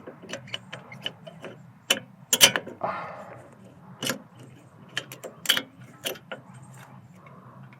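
Irregular metallic clicks and clinks of a brake pad and its hardware clips being worked into the caliper bracket by hand, with the loudest knock about two and a half seconds in.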